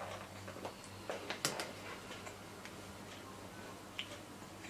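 Faint clicks and smacks of a baby being spoon-fed mashed apple, from the spoon at the lips and the baby's mouth working the food. There is a cluster of them about a second in and another single click near the end, over a steady low hum.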